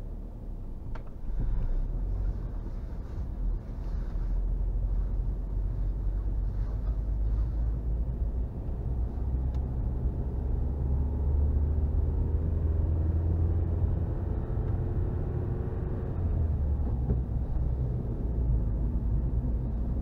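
Car being driven, heard from inside the cabin: a steady low rumble of engine and road noise. From about halfway through, the engine note rises slowly in pitch, then drops away a few seconds before the end.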